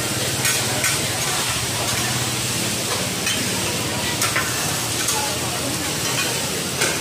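Hoi tod (crispy shellfish pancake) frying on a large flat griddle with steady sizzling, and metal spatulas clanking and scraping on the pan now and then.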